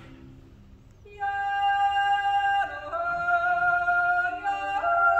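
Mixed yodel choir singing a wordless Appenzell-style natural yodel a cappella. After a brief lull, a high lead voice enters about a second in on a long held note. The other voices then join underneath in sustained chords that shift every couple of seconds.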